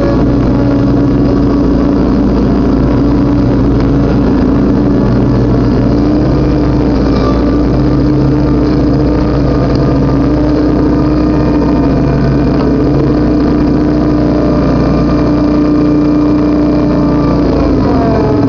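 Riding lawnmower's engine running loud and steady while mowing, heard close up from on the mower.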